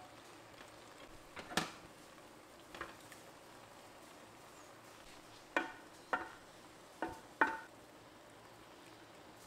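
Kitchen utensils knocking against a cooking pot as rice and chicken are spooned in: about six separate clinks, each ringing briefly, the last four in quick succession.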